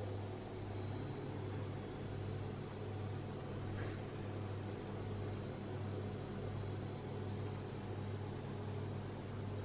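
A steady low hum with a faint even hiss, swelling slightly and regularly in level; a faint brief rustle about four seconds in.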